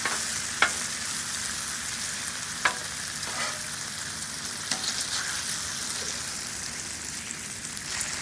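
Thick-cut bacon frying on a Blackstone flat-top gas griddle: a steady sizzling hiss with a few sharp ticks of spitting fat.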